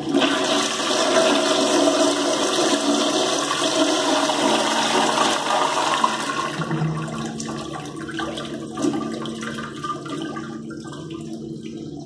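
Toilet flushing: water rushes into the bowl and swirls down the drain, strongest for the first half, then easing off and dropping lower about eleven seconds in as the flush ends.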